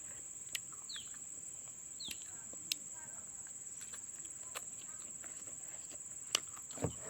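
A steady high-pitched drone of insects such as crickets, with a few short falling bird chirps early on and several sharp clicks spread through.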